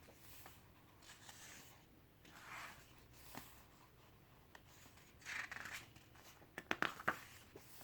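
Pages of a photo essay book being turned by hand: a few soft paper swishes, with a quick cluster of light taps near the end.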